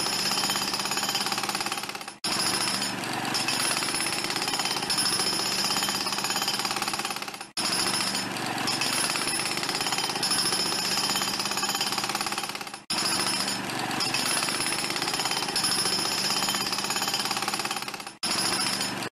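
Chef's knife chopping onion and garlic on a wooden cutting board, sped up on fast forward into a rapid, continuous rattle of blade strikes. It breaks off sharply for a moment about every five seconds.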